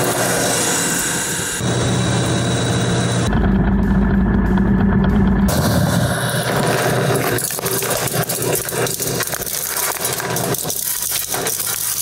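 A brushless alternator spinning on a drive test stand: a steady machine hum and whine that shifts abruptly in tone a few times. About three-quarters of the way through, gravel starts pouring onto the running alternator, a dense rapid crackle over the hum.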